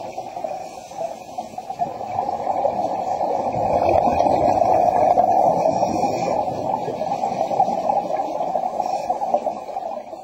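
Underwater, a steady crackling, bubbling hiss of scuba divers' exhaled air bubbles, swelling louder a few seconds in and easing slightly near the end, while the diver clears his partly flooded mask.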